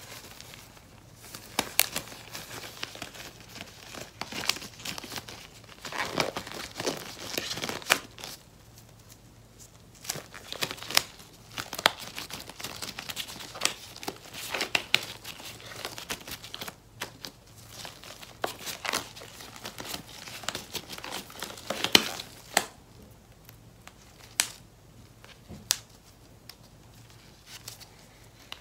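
White glove-shaped hand mask pack crinkling and rustling as it is handled and worked onto a hand, in bursts full of sharp crackles. It quietens in the last few seconds.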